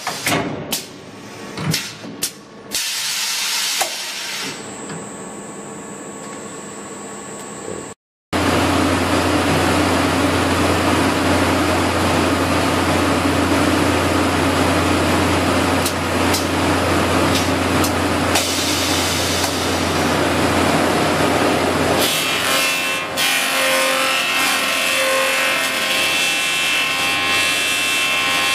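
Industrial woodworking machine with a spinning cutter drum, machining wooden boards fed past it on a chain conveyor. The first several seconds are quieter, with clicks and a high whine. After a brief break the machine sounds loud and steady, with a low hum, and about two-thirds of the way through a higher ringing tone joins the cutting noise.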